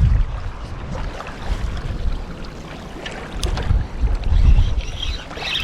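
Strong gusting wind buffeting the microphone: a low rumble that swells at the start, eases, and gusts up again about four seconds in.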